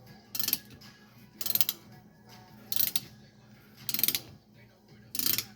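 Old 32-tooth ratchet clicking in five short bursts about a second apart, one on each back-swing of the handle, as it turns out a broken stud gripped by a spiral bolt-extractor socket.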